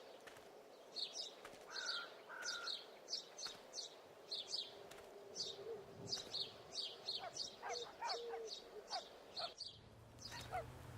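A small bird chirping in a steady series of short high chirps, about two a second, with a few lower whistled notes in between, heard faintly over quiet outdoor ambience.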